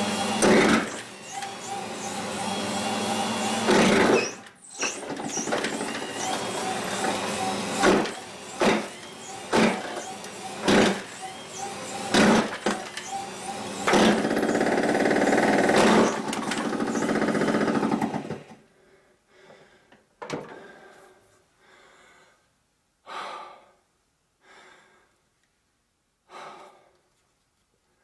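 Household electric wood chipper, its motor driven directly by a pedal-powered DC generator, running steadily with repeated sharp cracks and crunches as branches are fed in and chipped. The machine stops about two-thirds of the way through, leaving a few short knocks.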